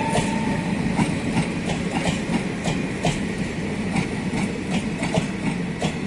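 Passenger coaches of an Indian Railways express rolling past with a steady rumble, their wheels knocking over the rail joints about two or three times a second. The last of the locomotive's horn fades out in the first half-second.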